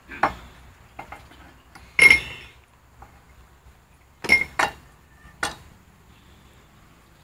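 Metal hand tools clinking and knocking against metal in several separate sharp strikes, the loudest about two seconds in ringing briefly.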